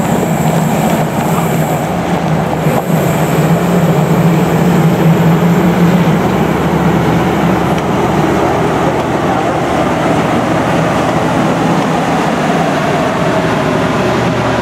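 Union Pacific passenger cars rolling past on the rails, a loud, steady noise of wheels and trucks on track.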